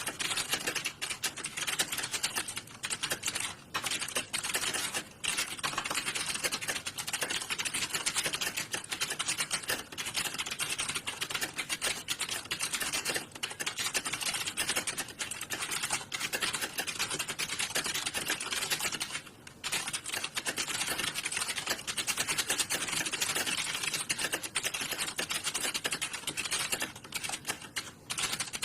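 Fast, nearly continuous typing on computer keyboards, the keys clicking in a dense run with a few brief pauses.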